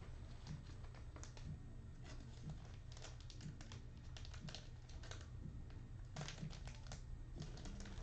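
Faint typing on a computer keyboard: short runs of key clicks with pauses between them.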